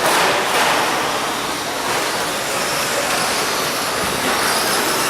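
Electric 2WD short course RC trucks running on an off-road track: a steady, noisy mix of their motors and tyres.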